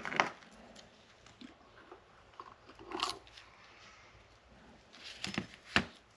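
Metal fuel filter and water separator housing being taken apart and handled with gloved hands: scattered light clicks and scrapes, with two sharper knocks near the end.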